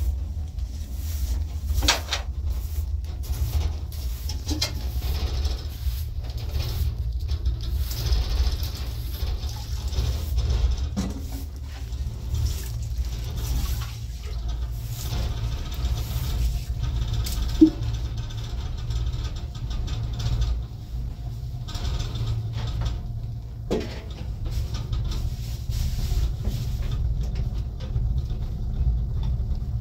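Household handling sounds over a steady low rumble: a straw broom sweeping across a rug, then an aluminium pot handled by a wood-burning barrel stove, with scattered light knocks and one sharp click about two-thirds of the way through.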